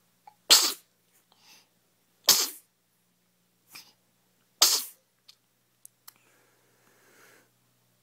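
A baby sneezing three times, about two seconds apart: short, sudden, loud sneezes.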